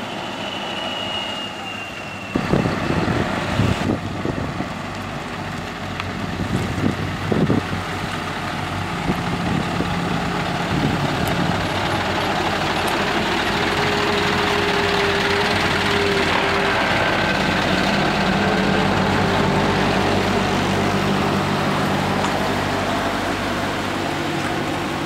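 Heavy trucks with trailers driving slowly past, their diesel engines running. There are several short sharp sounds in the first few seconds, then a steady low engine drone with a rushing noise over it.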